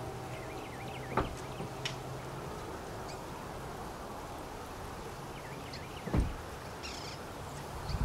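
Outdoor ambience by a rail line: a faint steady low hum, small birds chirping, and two short thumps, about one second in and about six seconds in.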